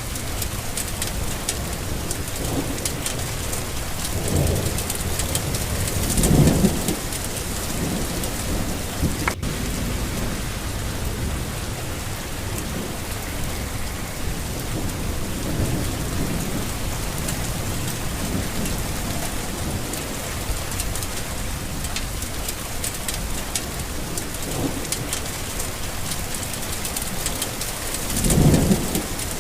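Steady rain falling, with low rolling rumbles of thunder; the loudest rumbles come about six seconds in and again near the end.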